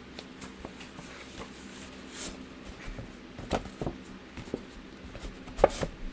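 Cardboard toy packaging being handled, a slipcase slid off the box: scraping and rubbing with a few sharp knocks, the loudest near the end.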